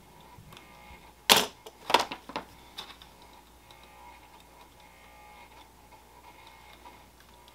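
Hand wire stripper snapping shut: one loud sharp click about a second in, followed by three lighter clicks over the next second and a half, then quiet.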